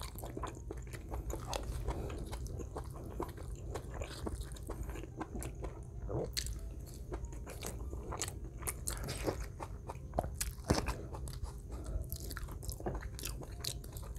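Close-miked chewing and crunching of food, with many small irregular clicks and crackles throughout.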